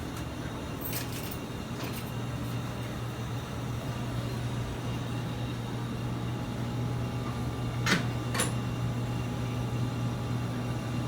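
Steady low hum of room noise, with two short clicks about eight seconds in.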